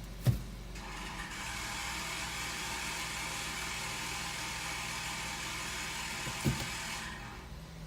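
A Nissan Note E11 making an abnormal noise: a hissing whir that starts just after a thump, holds steady for about six seconds over a low hum, and dies away shortly after a second thump.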